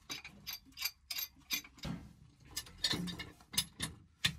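Pipe wrenches being set on an old brass pressure reducing valve and its copper pipe: irregular metal clicks and clinks, the loudest near the end.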